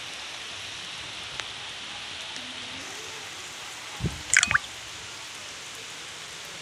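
Steady rain falling, an even hiss. About four seconds in, a brief cluster of loud knocks.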